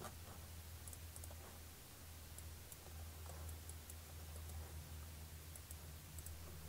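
A few faint computer mouse clicks over a low, steady hum.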